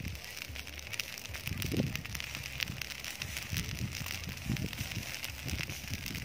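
A heap of dry rice straw burning, with a dense, continuous crackle over a steady hiss. Low gusts of wind rumble on the microphone about a second and a half in and again past the four-second mark.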